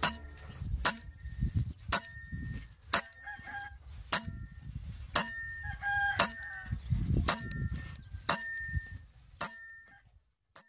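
Sharp clicks at an even pace of about one a second, each followed by a brief ringing tone, over a low rumble. Two short pitched calls come in about a third and about halfway through, and the sound fades out just before the end.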